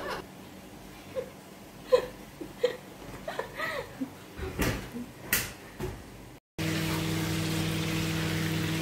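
Soft giggles and chuckles with a few sharp knocks from handling the phone. After a sudden cut, potatoes frying in a pan on a gas stove give a steady sizzle over a low steady hum.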